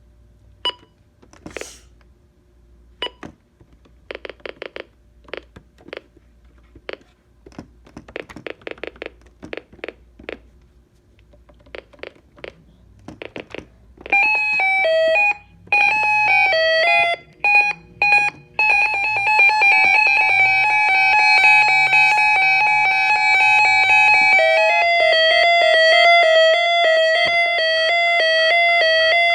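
Reecom electronic siren unit sounding its warning tones. First come short electronic beeps, some in quick runs. About fourteen seconds in, a loud continuous warning tone starts that switches rapidly between pitches; it cuts out briefly a couple of times and changes to a different pattern near the end.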